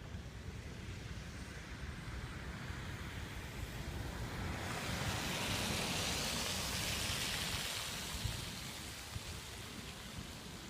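Winter storm wind: a steady low rumble of wind on the microphone, with a hiss that swells about four seconds in and fades again a few seconds later.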